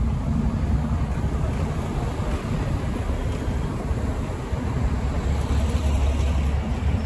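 Street traffic: a long line of cars idling and creeping past, a steady low rumble.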